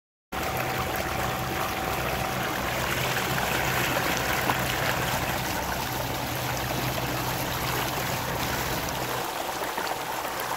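Water rushing and splashing steadily along the hull of a kayak moving under electric trolling-motor power, with a faint steady hum underneath.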